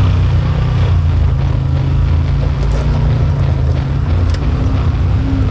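Side-by-side UTV engine running steadily as the machine crawls up a rock face.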